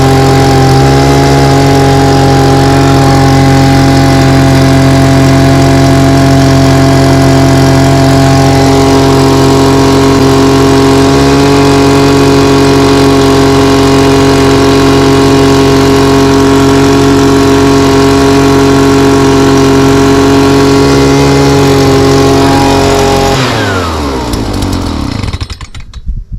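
Small engine running loud and steady at constant speed. About 23 seconds in it is shut off, and its pitch falls as it winds down to a stop.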